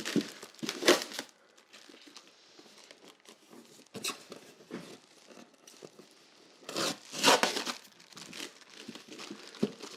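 Packing tape being ripped and peeled off taped-in accessories, with packaging crinkling. The tearing comes in irregular bursts: at the start, briefly about four seconds in, and in a longer stretch around seven seconds.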